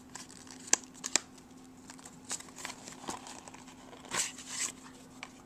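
Cardboard software packaging being handled and opened: two sharp clicks about a second in, then soft scraping and rustling of card and paper.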